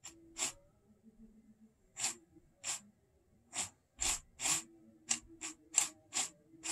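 About a dozen short, hissy breaths through the nose, irregularly spaced, close to the microphone.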